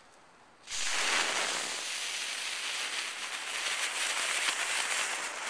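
A ground bloom flower firework burning: a loud, steady hiss of spark-jetting composition that starts suddenly about a second in and cuts off near the end.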